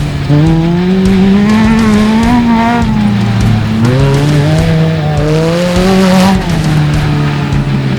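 Off-road race vehicle's engine revving hard, its pitch climbing twice with a drop in between, then falling back to a steady lower note near the end.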